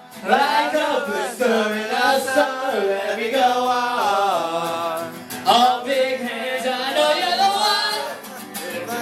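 Unaccompanied voices singing in a loose, playful sound-check warm-up, with notes that slide and swoop up and down over a held lower note.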